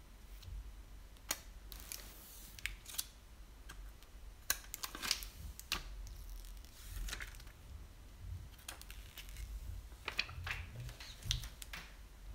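Handling noise of a smartphone being turned over in the hands: scattered light clicks, taps and brief rustles, coming in clusters, over a low rumble.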